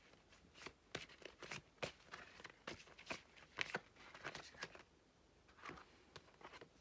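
Soft, irregular slaps and rustles of a deck of cards being handled, several a second, thinning out about five seconds in.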